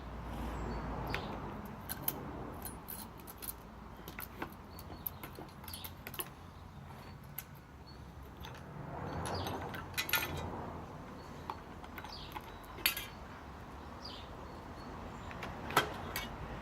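Small metal parts of a chainsaw being handled: scattered clicks and clinks as the guide plate, bar and steel chain are taken off, with a louder clink about ten seconds in and two more near the end.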